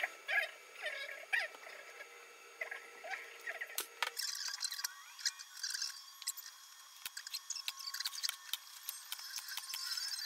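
Plywood box parts being handled and fitted together by hand: short squeaks of wood rubbing on wood, then light taps and scrapes as a plywood top is laid on and settled into place.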